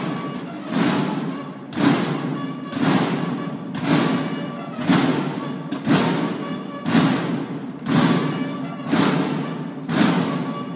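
A Mexican banda de guerra drum line playing, with a strong accented drum strike about once a second, each ringing out in the echo of the roofed court, and steady held tones sounding over the drumming.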